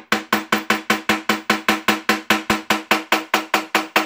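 Rapid, evenly paced hammer blows, about five a second, on a steel bar or chisel wedged into the cast-iron seam of a Ford Model T engine's hogshead, each blow ringing the metal. The blows are an attempt to break the sealant on the glued joint loose.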